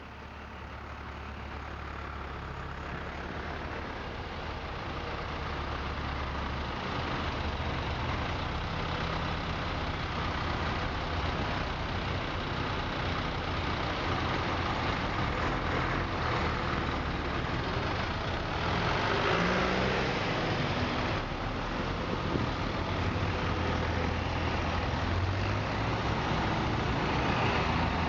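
Several farm tractors' engines running as a line of tractors moves slowly past, a steady low engine drone that swells over the first few seconds.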